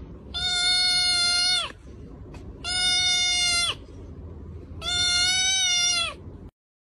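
A kitten meowing: three long, high, level-pitched cries, each a little over a second, over a steady low hum.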